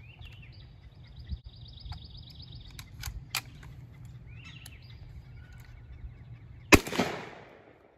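A single shot from a Savage 745 12-gauge semi-automatic shotgun (Browning Auto-5 long-recoil design) near the end, a sharp report with an echo that dies away over about a second. It is firing a light dove load, with the recoil rings set for low brass so the action cycles.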